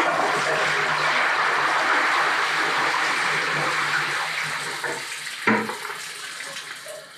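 Water poured from a bucket into the plastic feed-chute funnel of a HomeBiogas digester, a steady rush that tapers off as the bucket empties; this last bucket tops the digester up to full. A single knock about five and a half seconds in.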